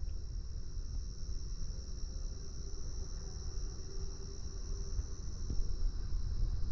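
Night insects, likely crickets, chirring in one steady high-pitched drone that does not let up, over a low rumble.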